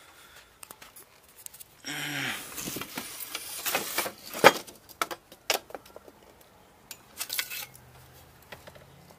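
Hard plastic and metal objects clattering and knocking as PVC pipe and fittings are rummaged through and moved aside. There is a brief low drawn-out sound about two seconds in, and the knocks are busiest in the middle.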